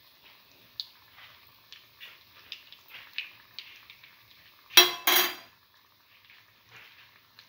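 Chickpea-batter-coated boiled egg frying in shallow oil, the oil crackling with scattered small pops. About five seconds in, two loud metallic clatters come in quick succession.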